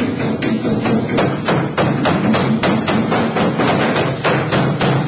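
Steel hammer striking galvanized sheet metal in a quick run of blows, about three a second, while the throat piece of a duct elbow is hammered into its Pittsburgh lock seam. Background music plays underneath.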